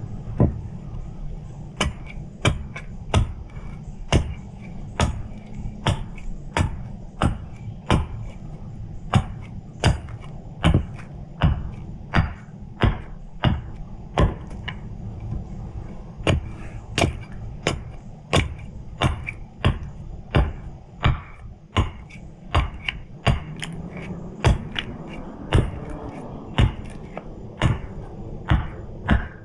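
Axe chopping into a hardwood spoon blank: a steady, regular run of sharp strikes, about one and a half a second.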